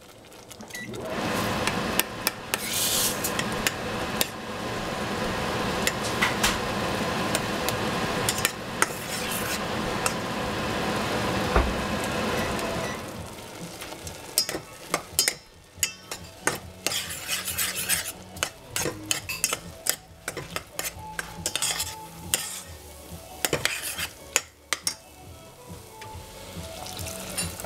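Water poured onto hot couscous in a stainless steel saucepan sizzles for about twelve seconds while a metal spoon stirs and scrapes the pot. Once the sizzle dies down, the spoon keeps scraping and clinking against the pot sides and bottom.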